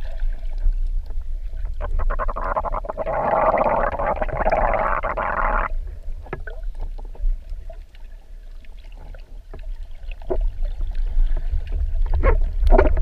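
Water heard from below the surface through an action camera's waterproof housing: a steady low rumble of water moving past it, scattered small knocks and clicks, and a stretch of rushing, bubbling water noise from about two and a half to nearly six seconds in that cuts off suddenly.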